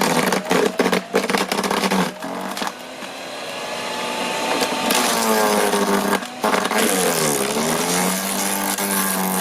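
Snow Joe CJ601E 14-amp electric wood chipper/shredder running and chewing through brush, with branches cracking and snapping in the cutter. Its motor pitch sags under the load about five seconds in and climbs back up near the end.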